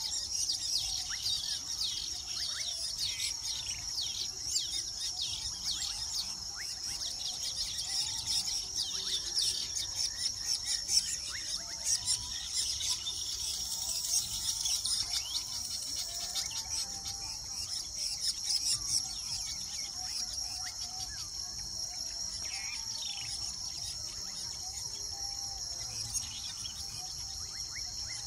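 Weaver birds chattering and calling at a nesting colony, a dense mass of quick scratchy notes over a steady high-pitched insect drone. The chatter thins out in the second half, leaving mostly the insect drone with occasional calls.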